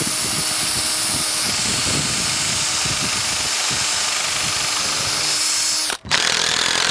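Cordless drill running steadily under load while fastening a rub rail insert to a boat's hull. It stops abruptly about six seconds in, then starts again briefly.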